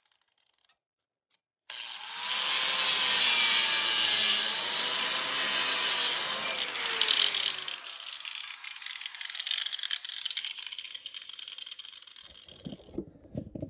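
Angle grinder with a cutoff wheel starting abruptly about two seconds in and cutting, its motor whine dipping and recovering under load. Around eight seconds it lightens and fades, with a few knocks near the end.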